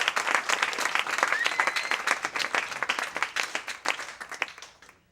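Audience applauding, the clapping dying away over a few seconds until it stops.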